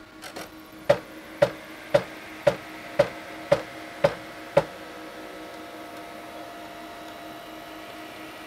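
Chauvet Intimidator Spot LED 250 moving-head light powering up and running its reset: eight sharp, evenly spaced clicks, about two a second, then a steady hum from its motors and fan as the head pans and tilts.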